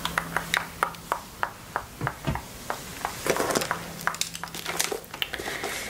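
A string of small, sharp clicks and taps close to the microphone, irregular at about two or three a second, with a brief busier patch of handling noise about halfway through.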